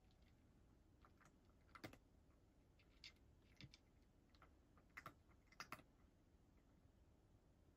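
A cat eating from a bowl: faint, irregular little clicks and crunches, a few every second or two.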